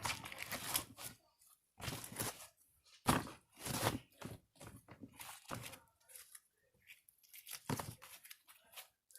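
Slime with foam beads in it being pulled and torn apart by hand: sticky tearing and crackling in a string of irregular bursts.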